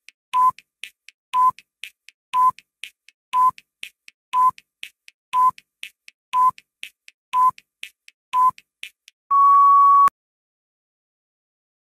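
Countdown timer sound effect: a short beep once a second, with a fainter tick between beeps, nine times, then a longer steady tone of nearly a second as the count reaches zero.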